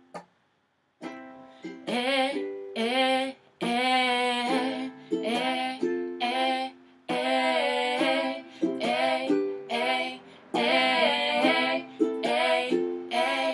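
Ukulele strumming chords, starting about a second in, with a woman singing a melody over it.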